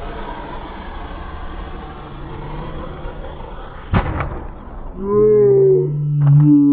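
An RC car lands on grass after a long jump, with a single sharp thud about four seconds in, over a steady rushing noise. Near the end come two loud stretches of a pitched sound that slides downward.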